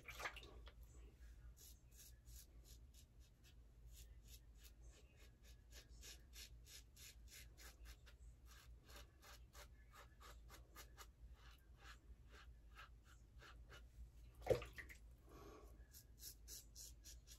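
Faint, quick scraping of a 3D-printed double-edge safety razor cutting stubble through lather, in short strokes a few times a second, with one brief louder knock near the end.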